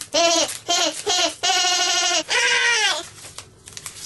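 A high-pitched, sped-up cartoon voice makes about five short wordless excited cries, the fourth one held for most of a second. About three seconds in, paper crinkles and tears as an envelope is torn open.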